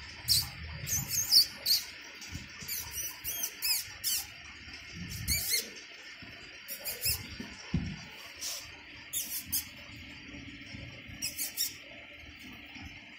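Brief high-pitched chirps and squeaks, two or three at a time in scattered clusters, over a faint steady hiss, with a few soft low bumps.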